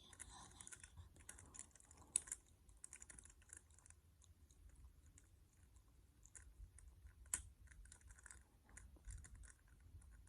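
Faint plastic clicking of a Rubik's Cube being twisted by hand, irregular small clicks with a couple of sharper snaps about two and seven seconds in.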